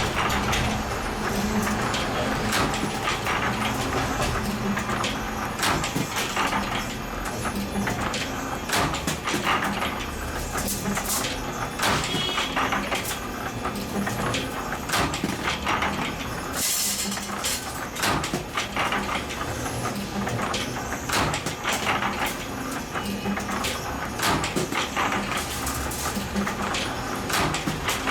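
Spring-making machinery running, with a continuous clatter of quick metallic clicks and knocks and a low pulse that repeats about once a second.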